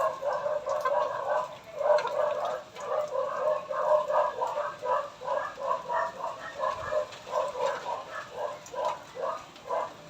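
A rapid, rhythmic series of short animal calls, several a second, running on without a break.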